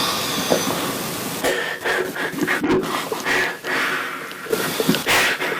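Amplified heavy breathing of a sleeping young man: a series of noisy breaths coming about a second apart.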